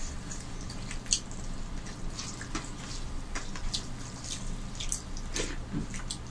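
Eating sounds: fingers mixing rice with fish curry on plates and mouths chewing, a run of short, irregular wet smacks and clicks over a steady low hum.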